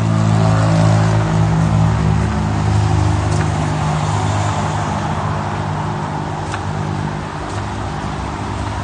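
City street traffic with a nearby vehicle engine running as a steady low hum that slowly fades, with a few faint ticks.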